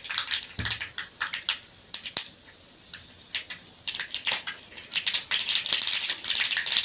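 Mustard seeds popping and spluttering in hot coconut oil in a kadai: a run of sharp, irregular crackles that grows denser from about four seconds in.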